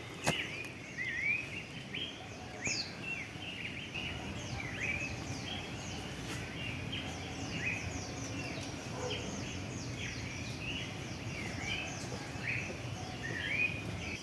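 Wild birds chirping: short rising-and-falling chirps repeated every second or so, with fainter higher calls over them and a low steady hiss underneath. A single sharp click sounds just after the start.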